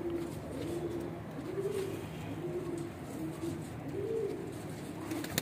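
Domestic pigeons cooing: a steady run of low coos that rise and fall, coming about one a second and overlapping. There is a sharp click at the very end.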